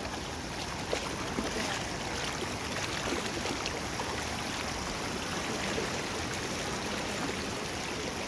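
Shallow rocky river flowing steadily over stones, an even rushing of water, with a faint click about a second in.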